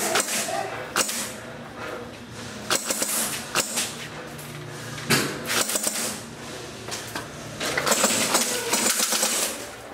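Airsoft guns firing in rapid bursts of sharp clicking shots, with scattered single clicks and knocks between them; the thickest bursts come about five seconds in and again around eight to nine seconds.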